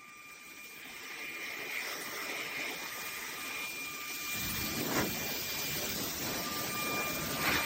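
Handheld cordless car vacuum running, its motor giving a steady high whine over a rushing air noise that grows louder, filling out lower down about four seconds in.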